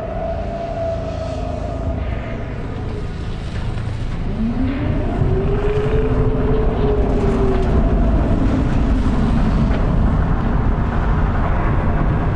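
Film sound design of a spaceship alarm: a slow wailing tone that rises and falls over several seconds, over a heavy low rumble that grows louder through the first half.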